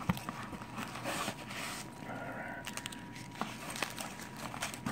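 Hands rummaging through packing peanuts in a small cardboard box: irregular rustling and scraping, broken by scattered small clicks as the peanuts rub together and against the cardboard.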